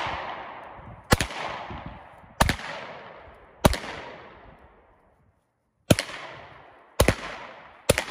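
Six shots from a Smith & Wesson M&P9 Shield EZ 9 mm pistol, fired about one to one and a half seconds apart with a pause of about two seconds after the third. Each sharp crack trails off in an echo lasting about a second.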